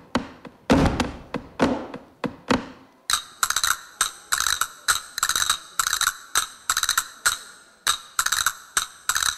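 Flamenco dance percussion: heavy, echoing knocks for about the first three seconds, then quick clicking rattles repeating roughly twice a second.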